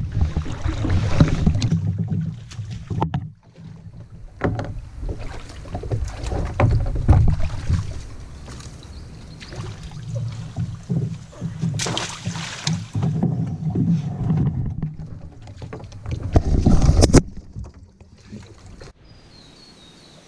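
A plastic sit-on-top kayak being worked through a shallow creek blocked by fallen logs and hauled over a log: the hull knocks and scrapes against wood, with paddle strokes and water splashing. Two loud bursts come about twelve and seventeen seconds in, then it goes much quieter for the last few seconds.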